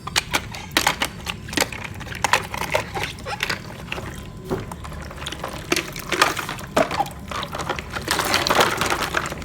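Water sloshing and splashing in irregular bursts as plastic animal toys are washed by hand, getting busier and more continuous about eight seconds in.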